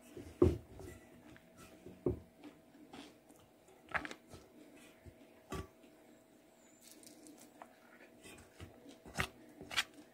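Close-up eating sounds: chewing and biting crispy fried sardine with rice, with a scattering of short crunches and clicks, the sharpest about half a second in and a few more near the end.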